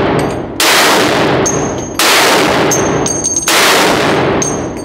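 Barrett M82A1 .50 BMG semi-automatic rifle fired three times about a second and a half apart, with a fourth shot right at the end. Each shot echoes long in the indoor range. Spent brass casings ring as they hit the floor between shots.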